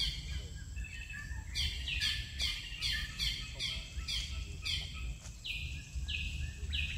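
A bird calling in the trees, a series of short high notes sliding downward, about three a second, with a brief pause about a second in and a few longer sliding notes near the end, over a steady low rumble.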